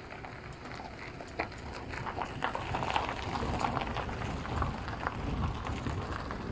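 Footsteps crunching on gravel as someone walks, an irregular run of crunches that grows louder about two seconds in.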